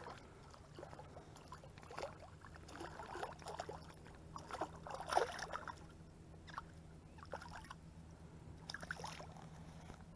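A hooked crappie splashing at the surface and water sloshing around a hand as the fish is landed: irregular splashes, the loudest about five seconds in, over a faint steady hum.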